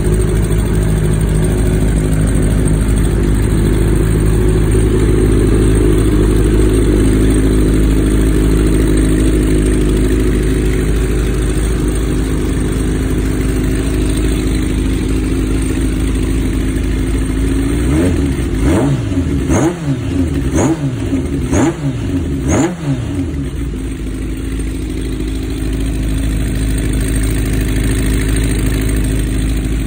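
Kawasaki ZRX motorcycle's inline-four engine idling steadily, then revved in five quick throttle blips about a second apart, each rising and falling in pitch, before settling back to idle.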